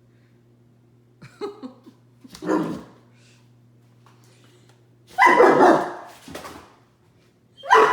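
Great Dane barking in short, separate bursts, the loudest about five seconds in and again near the end.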